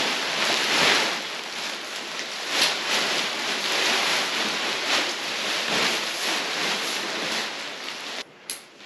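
The ultralight nylon rainfly of a Big Agnes Copper Spur UL2 tent rustling as it is shaken out and pulled over the tent frame. The rustling stops abruptly about eight seconds in, with one short rustle near the end.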